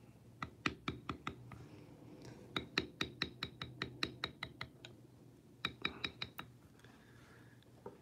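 Mallet tapping a small round-bevel stamping tool into tooling leather: three runs of quick, sharp taps, the longest one in the middle at about five taps a second.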